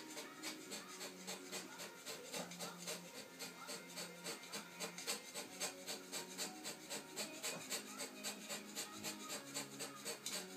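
Hand scraper stroking along the cast-iron rear way of a Schaublin SV52 milling machine column: a steady run of short, rasping scraping strokes, the repeated cuts of hand scraping the way flat.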